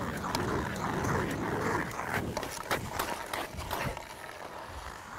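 Hockey skate blades scraping and carving on the ice as the skater sculls, blades kept on the ice and pushed out and in, with many sharp clicks of edges and stick on the ice. The scraping eases off about four seconds in.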